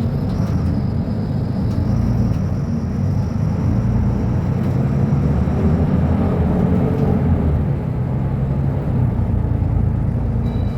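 Diesel engine of a Mercedes-Benz O500U city bus with a ZF Ecolife automatic gearbox, running steadily. A faint whine rises and falls around the middle.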